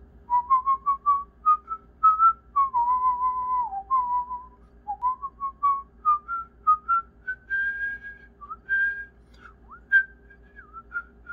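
A person whistling a tune by mouth: runs of short notes stepping upward, with a few longer held notes and short downward slides.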